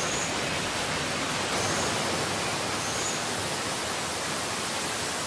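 Steady rush of flowing water, with no breaks or strikes.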